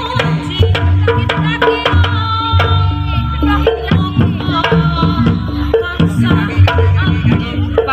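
Live jaranan ensemble music. Kendang hand drums play a busy, driving rhythm over steady low drum beats, with a wavering high melody on top.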